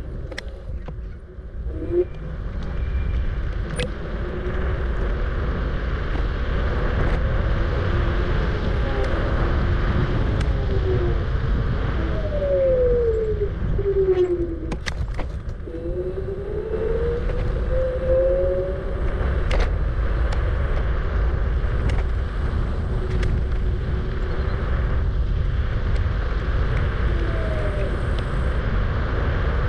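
Wind and road rumble from riding a Kugoo G-Booster electric scooter, with the hub motors' faint whine falling and then rising in pitch midway as the scooter slows and speeds up again.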